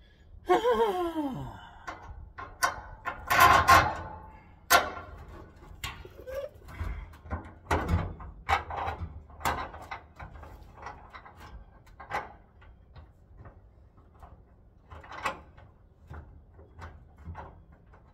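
Irregular clanks, knocks and clicks of metal parts and tools being handled under the car at the fuel tank, with a short sound falling in pitch about half a second in and a cluster of loud knocks a few seconds in.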